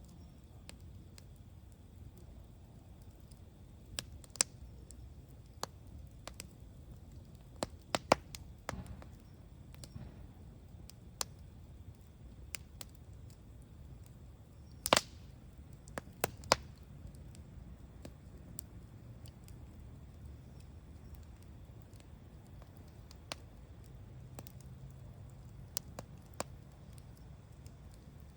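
Wood campfire crackling: irregular sharp pops and snaps, a few much louder ones around 8 and 15 seconds in, over a low steady rumble of the burning fire.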